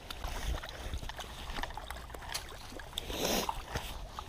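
A hooked rainbow trout splashing at the water's edge as it is drawn in to the bank, with scattered small clicks and one louder splash about three seconds in.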